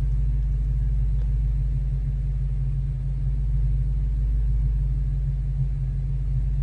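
Ford Mustang GT's 5.0-litre V8 idling, a steady low rumble heard from inside the cabin.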